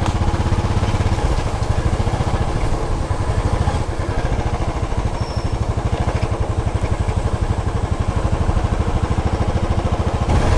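Motorcycle engine running steadily under way, a continuous low pulsing rumble with a rushing haze of wind and road noise over it.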